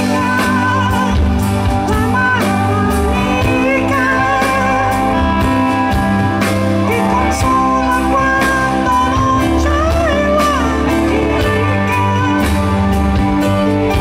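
Rock band playing live: drum kit keeping a steady beat under bass, guitar and a wavering lead melody.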